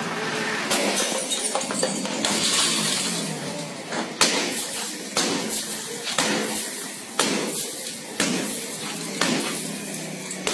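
Sharp knocks over a steady noisy background: a couple at first, then evenly about one a second.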